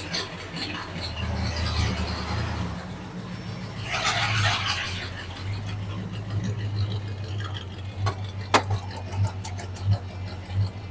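Ford flathead V8 in a Model A hot rod idling with a steady low rumble. A brief hiss about four seconds in, and a couple of sharp clicks near the end.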